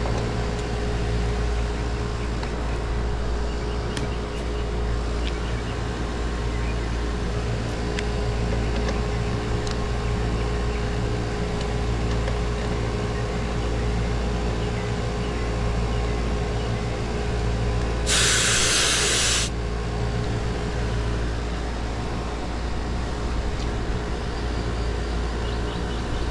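Air-conditioner condensing unit running with a steady hum from its compressor. About eighteen seconds in, a sharp hiss of refrigerant lasting a second and a half as a gauge hose is worked on the service valve port.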